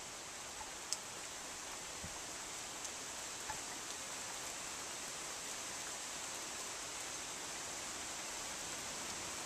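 Steady outdoor hiss, strongest in the high register, with a few faint ticks and one sharp click about a second in; no thunder is heard.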